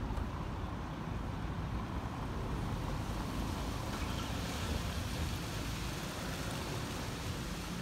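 Steady low rumble of road traffic and motor vehicles around a city square, with no single sound standing out.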